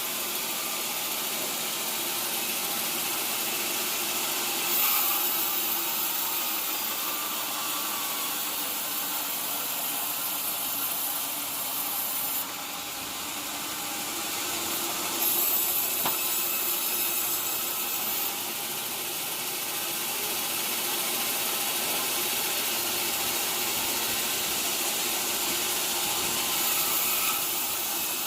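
Sawmill saw running and cutting through teak wood, a steady mechanical noise that grows louder and brighter about five seconds in, again around fifteen to eighteen seconds, and near the end.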